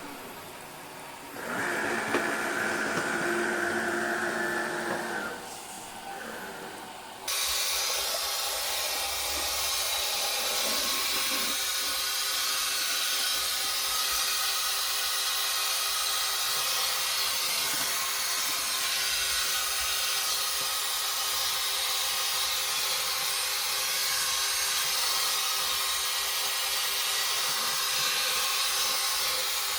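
Lejoy LD20 robot vacuum cleaner running: a motor whine for a few seconds, then about seven seconds in a steady, hissing rush of its suction fan sets in suddenly and holds.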